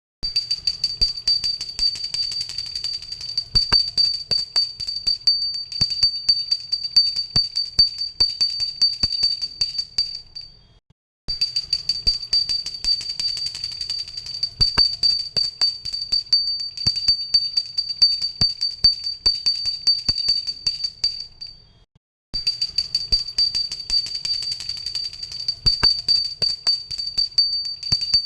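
Handheld pooja (worship) bell rung rapidly and continuously, its clapper striking many times a second under a steady high ringing tone. The ringing stops for about half a second twice, about a third of the way in and again about two-thirds of the way in, then starts again at once.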